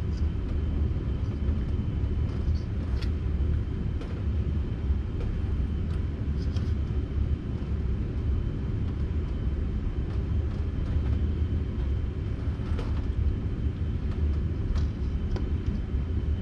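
Steady low rumble throughout, with a few faint, scattered clicks of spark plug wire boots being worked onto the terminals of a new MSD distributor cap.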